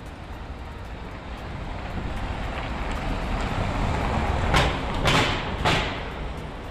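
A van driving past close by on a cobblestone street, its noise swelling, then peaking with three short loud bursts about four and a half to six seconds in before fading.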